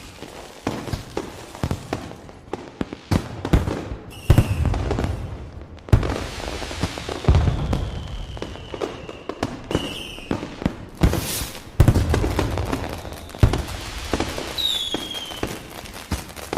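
A fireworks display: repeated bangs and crackling, with several whistling rockets gliding down in pitch.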